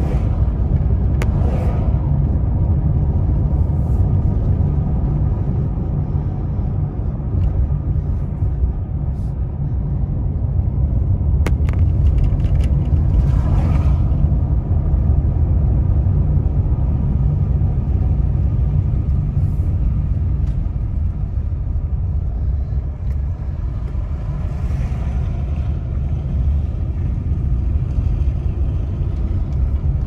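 A car driving at road speed: a steady, low rumble of tyre and engine noise heard inside the cabin.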